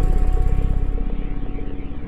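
Dark ambient drone music: a low, dense synthesizer rumble fluttering about a dozen pulses a second under steady held tones. The high end falls away about halfway through.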